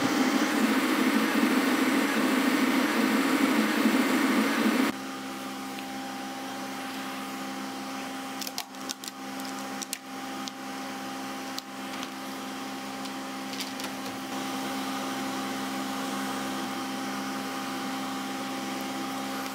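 Creality K1 3D printer running a print at 300% speed: a loud, dense whir of its fans and fast-moving print head, which cuts off abruptly about five seconds in. After that a quieter steady hum remains, with a few light clicks and taps as the thin plastic print is handled.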